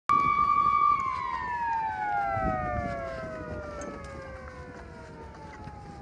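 Smokejumper base fire-call alarm siren sounding a steady tone. After about a second it winds down in a long falling pitch, growing fainter. The alarm calls the jumpers out to a fire.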